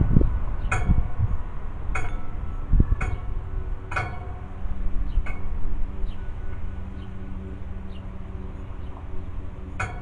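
Metal tube wind chimes clinking in the breeze, roughly one strike a second through the first five seconds and a few fainter ones after, the tubes ringing on in steady tones between strikes. A low rumble runs underneath.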